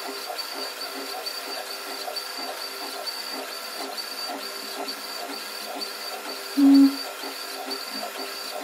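A machine running with a steady hiss and a regular pulsing about two to three times a second, and a short, loud, low beep about six and a half seconds in.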